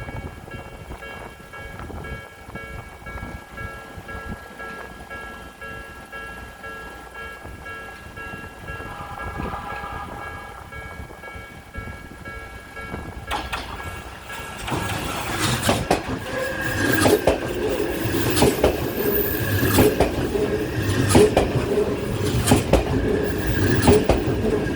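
A level crossing warning bell rings steadily. About 13 seconds in, the Odakyu 50000 series VSE electric train arrives and passes, its wheels clacking over the rail joints and getting louder toward the end.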